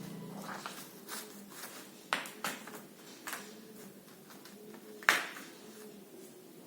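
Faint room tone broken by a few short, sharp taps, the loudest one about five seconds in.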